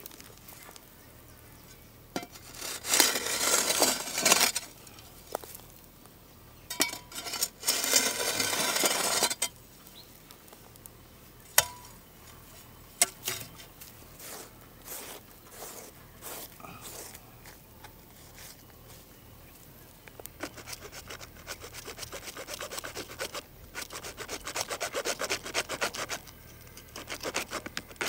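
Hand sawing in quick, even back-and-forth strokes that start about two-thirds of the way in and keep going. Before that come two spells of scraping and a few sharp knocks.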